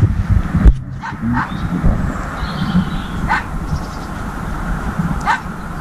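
Clip-on lavalier microphone being handled at the collar: rubbing and knocks on the mic, with a loud thump about a second in and a brief drop-out just after. Short high cries that rise in pitch recur about every two seconds behind it.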